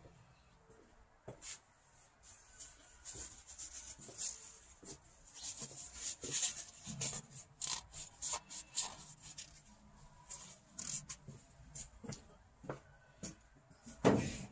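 Irregular rubbing, scraping and small clicks of hand work on a sticking windshield wiper cable and linkage that has been soaked with penetrating oil. The sounds are busiest in the middle, with a sharper knock near the end.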